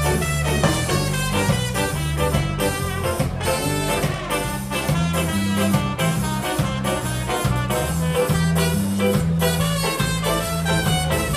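Live ska band playing: a horn section of tenor and alto saxophone, trumpet and trombone over electric guitar, keyboards, bass guitar and drum kit, with a moving bass line.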